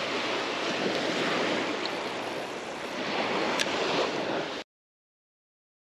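Surf washing onto the beach with wind on the microphone, a steady rush that cuts off to dead silence about four and a half seconds in.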